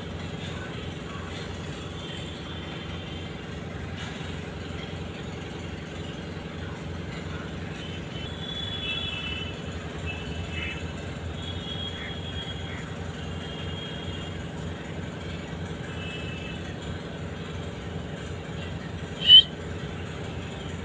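A steady low mechanical hum like a motor or engine running, with faint short high chirps scattered through it. Near the end comes one short, loud, sharp high squawk from a parrot.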